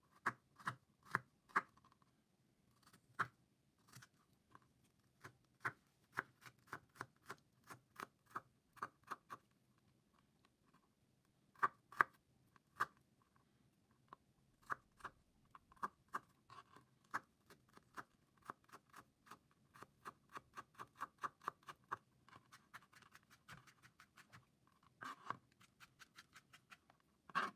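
A kitchen knife chopping garlic cloves on a plastic cutting board: irregular runs of light, sharp taps, with a quicker, even run of about five taps a second in the second half.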